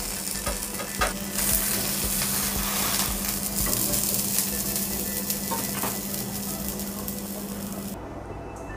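Banana-leaf-wrapped paneer parcel sizzling as it fries in a non-stick pan, with a few light clicks of handling; the sizzle cuts off suddenly near the end.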